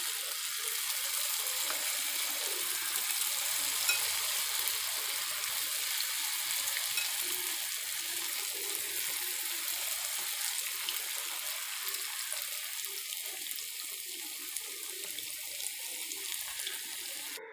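Clumps of cabbage batter deep-frying in hot oil in a pan: a steady sizzle with fine crackling, easing slightly toward the end.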